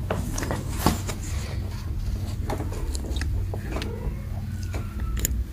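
Kittens scuffling and pawing on a tile floor and a fabric cover: scattered soft scratches, rustles and light taps over a steady low hum.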